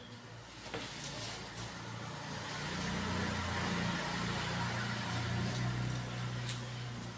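A passing motor vehicle's engine, a low hum with road noise that builds over the first few seconds and eases off near the end. A sharp click comes about a second in and another near the end.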